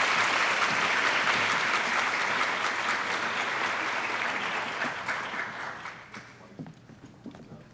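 Audience applauding, a dense steady clapping that fades out about six seconds in.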